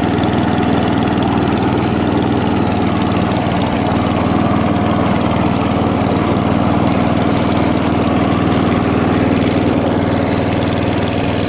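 Atco Balmoral 14S cylinder lawnmower's engine running at a steady speed as the mower is run over grass.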